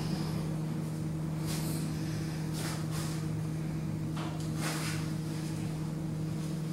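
A steady low hum, with four or five short rustles of loose paper over it.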